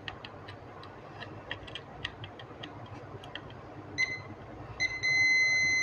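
Digital multimeter in continuity mode beeping: a short beep about four seconds in, then a steady high-pitched beep near the end as the probes find a connection to a MOSFET. Before it, light irregular clicks of the probe tips tapping on the circuit board.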